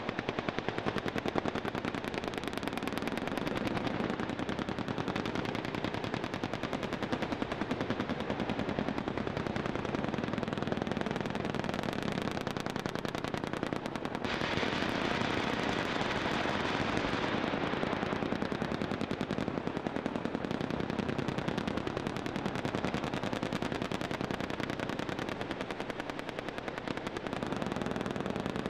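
Continuous rapid machine-gun fire, shot after shot without a pause, sounding brighter and crisper from about halfway through.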